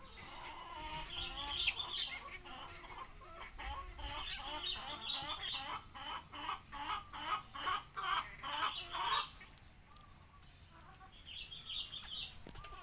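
Chicken clucking in a series of short calls, quickening into a fast, even run of louder clucks at about three a second a little past the middle, then trailing off.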